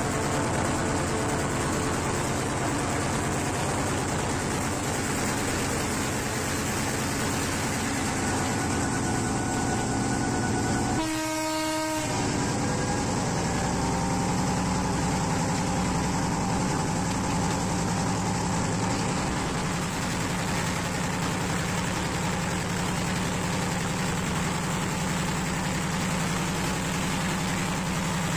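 Diesel train running steadily in and out of tunnels, with continuous rail and running noise. Its horn sounds once, for about a second, a little before halfway, and a steady low engine hum is heard after it.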